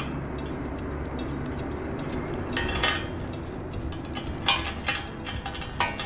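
Light metal clicks and clinks of a nut, washer and bolt being fitted and hand-tightened on the mount bracket of a bicycle front rack, scattered and more frequent in the second half, over a low steady hum.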